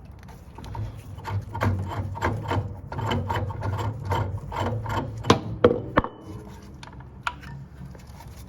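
Cold-water supply valve on a water heater being turned shut by hand, a rhythmic run of rubbing, grinding strokes from the handle over a steady low hum, ending in a few sharp clicks.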